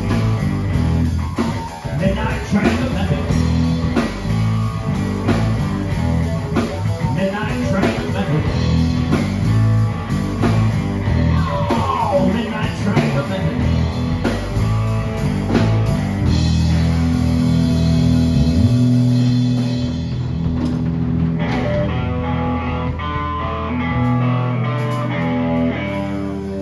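Live blues band playing an instrumental passage on electric guitar, electric bass and drum kit. About two-thirds of the way in the drums thin out, leaving held guitar and bass notes, and the level eases down near the end.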